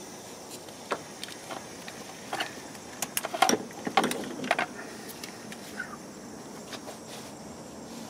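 Clicks and clatter of a hand-held A/C oil injector and its hose coupler being unhooked from the low-side service port, densest a little past the middle, over a steady background hum.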